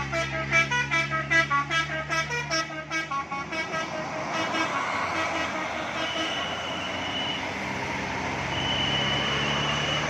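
Bus telolet basuri horn playing a rapid melody of short notes for about three and a half seconds. The bus's engine and road noise follow as it passes, with a high steady whine sounding twice near the end.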